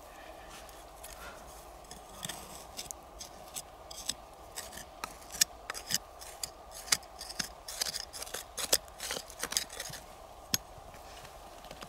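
Fingers and a small hand tool scraping and scratching through gritty soil: a run of short, irregular scrapes and clicks, busiest from about two seconds in until near the end.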